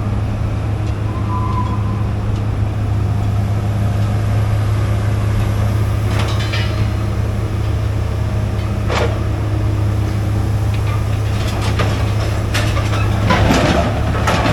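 A heavy engine runs at a steady low drone, with a few sharp metal clanks and knocks about six, nine and thirteen seconds in, as a crane handles the scrap baler.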